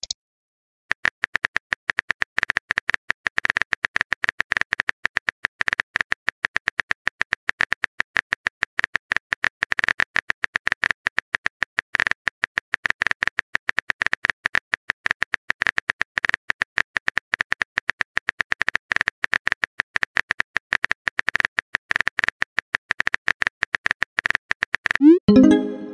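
Rapid keyboard-typing sound effect: a fast, even run of small clicks while the next message is being typed, ending in a short pitched message-arrival chime near the end.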